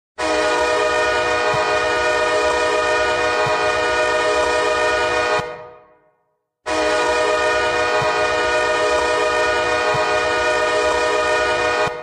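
Hockey goal horn sounding in two long blasts of about five seconds each, a steady chord of several tones, with a short silent gap between them.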